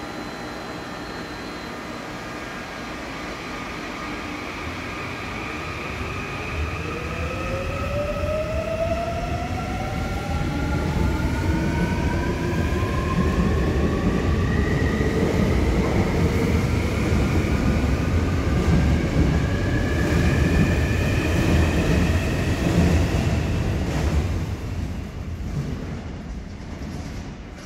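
Old second-batch Seoul Subway Line 4 electric train departing: its traction motors whine in several tones that rise in pitch as it picks up speed, over a growing rumble of wheels on the track. The rumble fades near the end as the train leaves.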